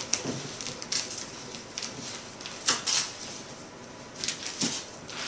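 Gift wrapping paper crinkling and tearing in scattered short bursts as dogs worry at wrapped presents.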